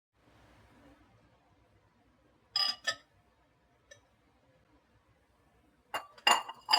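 Kitchenware clinking: two sharp, ringing clinks about two and a half seconds in, a small click a second later, and a quick run of three clinks near the end.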